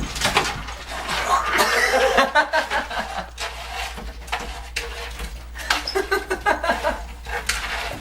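People laughing and chuckling, with some indistinct talk mixed in.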